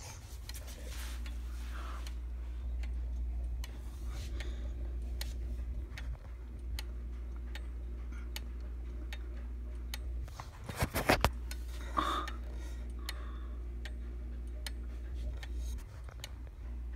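Franz Hermle pendulum clock movement ticking steadily, with evenly spaced clicks. About eleven seconds in there is a brief cluster of louder knocks.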